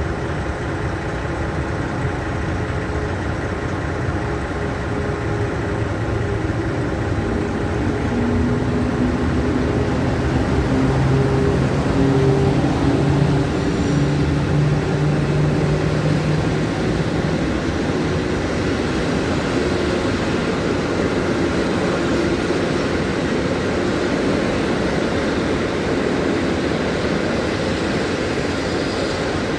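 EP09 electric locomotive hauling a rake of passenger coaches slowly past, its motor hum rising in pitch about a third of the way in as it picks up speed, then the coaches rolling by.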